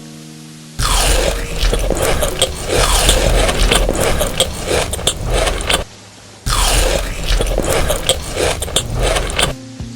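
Close-miked eating sounds of dessert being crunched and chewed, with scraping, as dense crackly noise full of small clicks. It comes in two long stretches, each cut off by a short pause.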